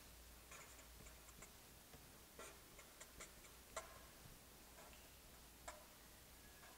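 Faint felt-tip marker writing on paper: short scratchy strokes and small clicks of the tip, scattered and irregular, the sharpest about four seconds in and again near six.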